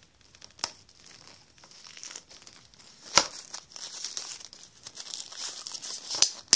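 Plastic shrink-wrap crinkling as it is handled and worked off a DVD box set, with a few sharp clicks, the loudest about three seconds in.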